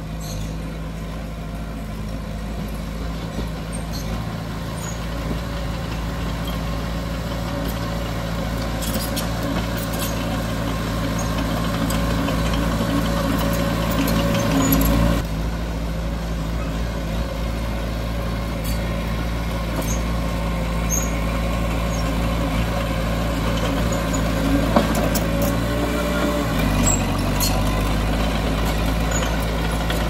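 Diesel engine of heavy earthmoving machinery running steadily under load, with faint clanks and squeaks over it. The engine note shifts near the end.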